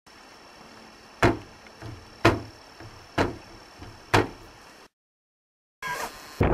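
Four sharp knocks, about a second apart, each followed by a softer low thump. They stop, there is a brief moment of dead silence, and a louder, noisier sound starts near the end.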